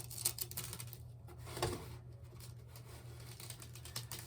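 Sandpaper rubbed against metal stick pins to remove glue buildup: short, irregular scratching strokes and small clicks, over a steady low hum.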